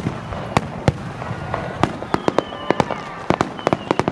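Fireworks bursting in a rapid, irregular string of sharp bangs that come thicker in the second half, with faint thin whistling tones behind them.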